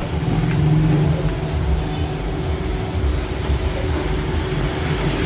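Heavy, steady low rumble of a moving vehicle, with deep bass pulses from a loud mobile sound system mixed in.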